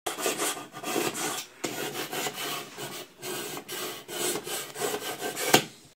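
Repeated scraping strokes, a rasping rub over and over with short breaks between strokes, and a sharper click near the end.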